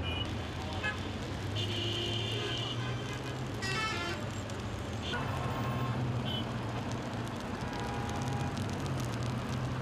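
Street traffic noise: a steady low engine hum with passing vehicles, and a few brief pitched sounds, distant voices or horn-like tones, rising above it now and then.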